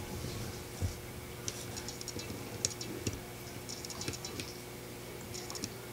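Steady low hum of a hang-on-back aquarium filter running, with scattered short clusters of light clicking and a soft knock about a second in.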